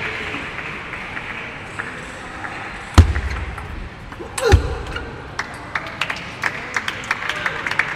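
Table tennis play in a sports hall over a murmur of crowd talk: a loud sharp knock about three seconds in and another knock about a second and a half later, then a quick patter of clicks and claps through the last few seconds as applause starts.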